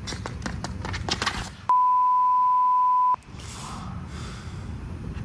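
Quick footsteps slapping on pavement, then a steady 1 kHz censor bleep lasting about a second and a half, which starts and stops abruptly. A soft rustle of noise follows.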